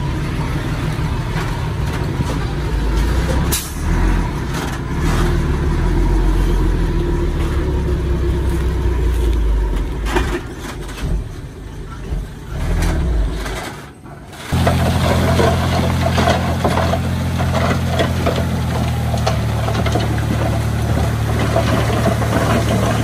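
Heavy diesel engines of construction machinery running under load. About two-thirds of the way through, the sound breaks off and is replaced by a different steady, low engine drone.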